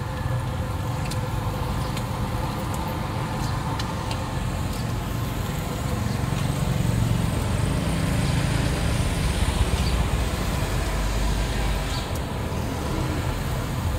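Steady low rumble of a motor vehicle engine running nearby. It grows louder about six seconds in and eases off near the end.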